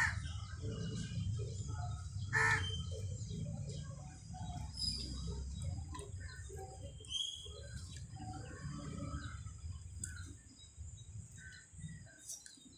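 A crow cawing twice, once at the start and again about two and a half seconds in, with fainter chirps of other birds scattered through and a low rumble underneath that fades near the end.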